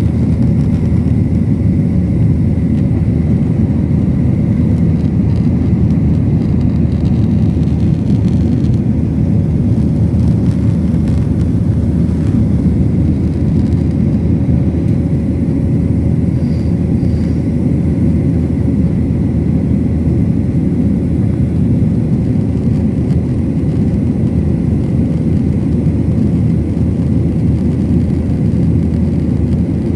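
Airliner engines and airflow during take-off and climb: a steady, loud low rumble with a faint steady hum above it, unchanging throughout.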